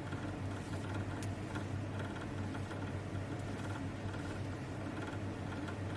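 Steady low background hum with faint hiss and a few faint ticks: the room and recording noise floor between stretches of speech.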